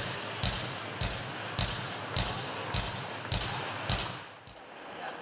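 Foxtrot dance music playing over the rink's speakers, with a steady beat of a little under two beats a second, which stops about four seconds in.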